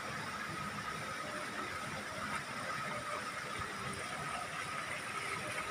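Water spilling from a stone fountain bowl into a shallow pool: a steady splashing rush, with a faint steady high hum underneath.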